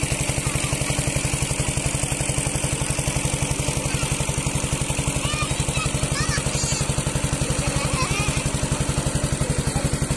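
Engine-driven water pump running at a steady speed with an even, rapid pulsing beat, pumping water out of the pond through a large hose.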